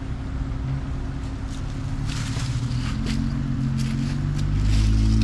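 Jeep Wrangler JL Unlimited engine working under load as it crawls over rocks, its pitch rising and getting louder toward the end, with scattered crunches and clicks from the rocky ground.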